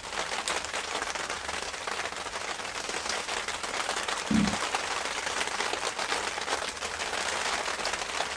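Steady rain pattering on a fabric canopy overhead, a dense crackle of drops. One dull low thump about four seconds in.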